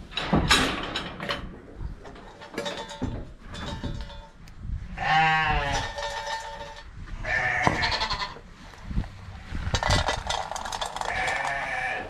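Shetland sheep bleating: three long, wavering bleats, about five, seven and ten seconds in. A few sharp knocks and rattles sound near the start.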